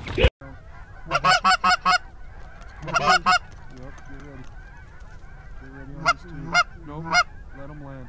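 Canada geese honking: a quick run of four honks about a second in, another cluster around three seconds, then three single honks near the end, with softer, lower clucks in between.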